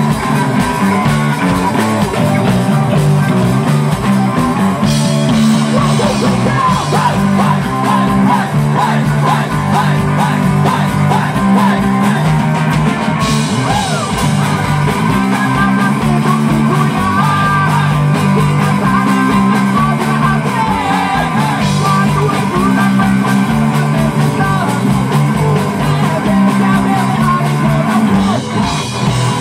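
A live rock band playing loud, with a driving electric bass line and steady drums under guitar and a singer's voice.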